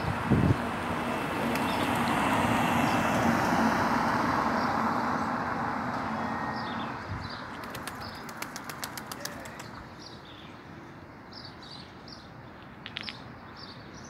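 A vehicle passes along the street, its noise swelling and then fading over the first several seconds. About eight seconds in, a pigeon's wings clap in a quick run for about two seconds. Through the rest, a small bird chirps over and over in short notes.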